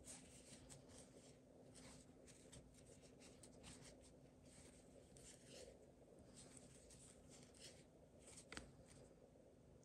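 Very faint rustling and scratching of yarn drawn through stitches by a crochet hook as single crochet is worked, many short soft strokes with one slightly sharper tick near the end, over a faint steady low hum.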